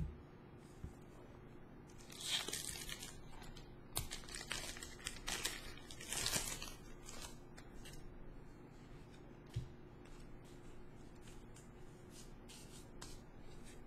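Foil booster-pack wrapper of Pokémon trading cards being torn open and crinkled, in two spells of tearing about two and four seconds in, followed by light clicks and rustles of the cards being handled.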